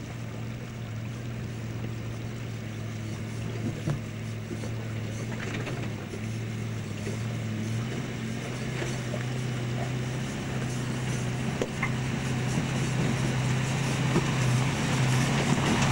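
Land Rover 101 Forward Control's V8 engine running steadily as the truck crawls over a rocky track, growing louder as it comes closer, with a few faint knocks from stones under the tyres.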